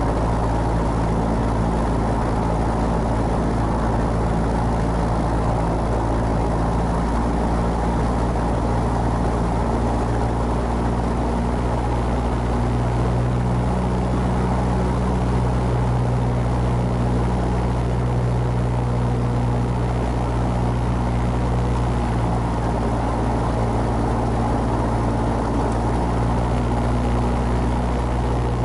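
Piper Cherokee's single piston engine and propeller idling steadily on the ground, heard from the cockpit.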